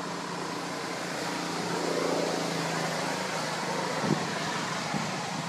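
A motor hums steadily, swelling a little about two seconds in, over a steady outdoor hiss.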